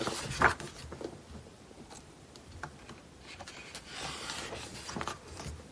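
Pages of a photo book being handled and turned: soft paper rustling near the start and again around four seconds in, with scattered light taps and clicks.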